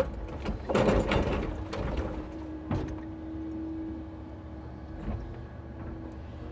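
Timber truck's hydraulic loader crane working a load of birch logs: a steady hydraulic whine, with knocks and scraping of logs about a second in, again near the middle and once more later.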